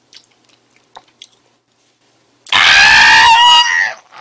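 Faint wet mouth clicks of chewing, then about two and a half seconds in a man lets out a loud, strained scream lasting over a second, a reaction to the very sour pineapple in his mouth.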